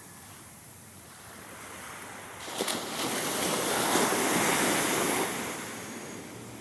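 An ocean wave breaking and washing up the beach: the rush builds about two seconds in with a sharp splash, runs loudest through the middle, then fades as the water draws back.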